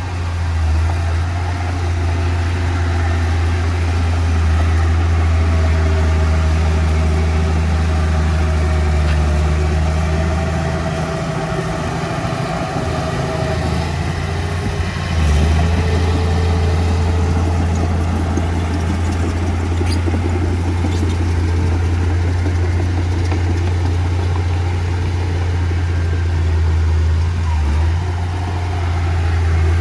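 Heavy diesel engine of earthmoving machinery running with a steady deep drone; it eases off about eleven seconds in and comes back up strongly about fifteen seconds in.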